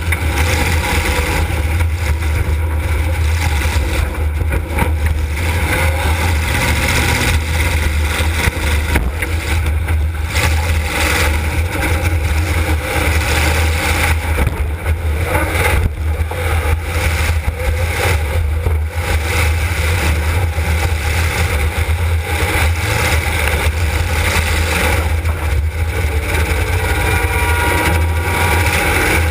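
Demolition derby car's engine running loud and steady, heard from on board the car, with a constant deep rumble.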